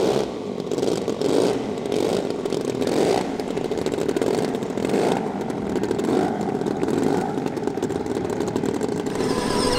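A radio-controlled model aircraft's engine running, its sound swelling and fading every second or so.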